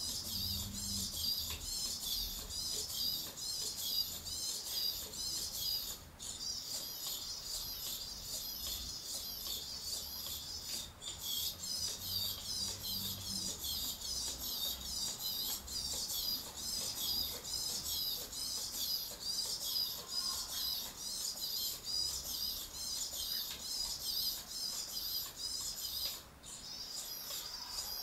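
Small hobby servos of a legged walking robot whining and chattering in a quick, even rhythm as it steps, high-pitched, with a few brief pauses.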